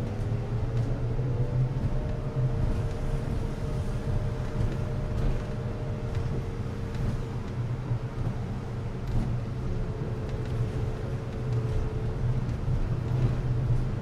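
Interior running noise of a city bus standing still: a steady low hum with a faint held whine above it.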